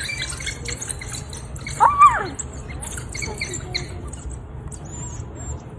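A wild canid making high, squeaky, bird-like calls: many short chirps, with one louder rising-and-falling call about two seconds in, over a low rumble.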